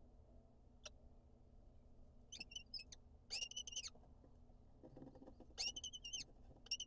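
Lesser kestrels calling in the nest box: four short bursts of rapid, high chattering trills. A soft scratching in the gravel comes about five seconds in.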